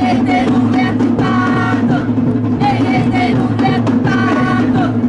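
Polynesian dance song: voices singing in phrases over drums, with a steady low hum underneath.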